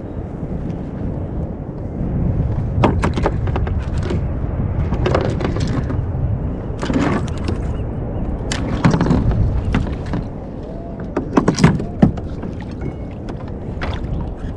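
Steady wind rumble on the microphone, broken by a series of sharp knocks and clatters from a plastic fishing kayak and the gear handled on it, the loudest a pair of hits about two thirds of the way through.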